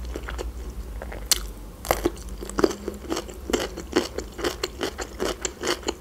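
A person chewing crunchy food with her mouth closed: a run of crisp crunches, about three a second, that starts about a second in.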